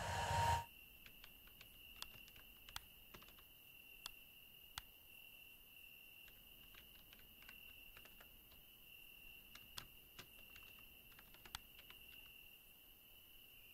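Faint, scattered clicks of laptop keys being typed on, over a steady high-pitched drone like a cricket trill. It opens with a loud swelling sound that cuts off suddenly about half a second in.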